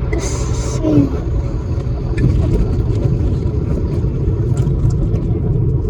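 Car driving in city traffic, heard from inside the cabin: a steady low rumble of engine and road noise.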